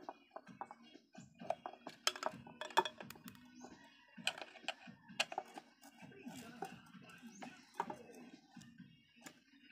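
Screwdriver clicking and scraping against the metal screws and stator plate of a motorcycle magneto while the primary coil is unscrewed: a run of small, irregular metal clicks.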